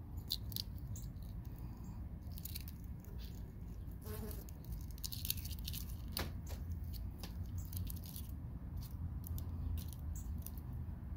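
A spoon scraping cooked salted egg out of its shell: a scatter of small crackling scrapes and ticks, over a steady low rumble.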